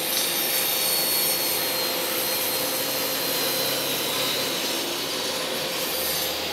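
Bosch table saw cutting through a beech glued-laminated panel on a crosscut sled: the blade runs at speed with a steady whine while the cut goes on.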